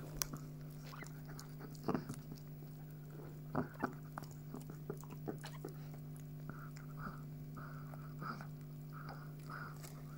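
Chihuahua mother licking and chewing at her newborn puppy: wet smacking and sharp clicks over a steady low hum, with short soft sounds repeating about twice a second in the second half.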